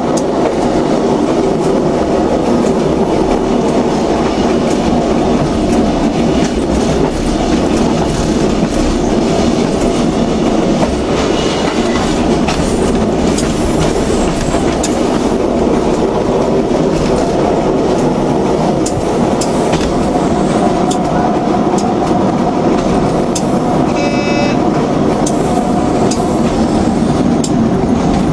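Passenger train running steadily along the track, heard from on board: a continuous rumble of wheels and running gear. About three-quarters of the way through comes a brief, high-pitched squeal.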